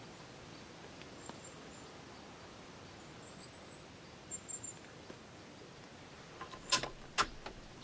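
Quiet outdoor background with a few short, high chirps from birds, then a quick cluster of sharp clicks near the end, two louder than the rest, as the Rossi 8122 rifle is handled at the bench before a shot.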